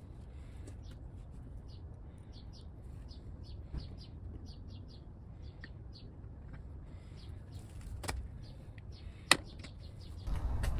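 A small bird chirping over and over in short calls above a low, steady background rumble, with two sharp clicks near the end, the second the loudest sound.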